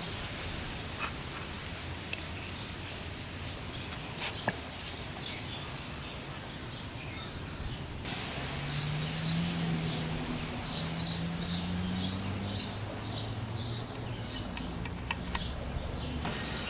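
Steady background hiss with scattered light clicks and taps. After an abrupt change about halfway, a bird chirps repeatedly, about twice a second, over a faint low hum.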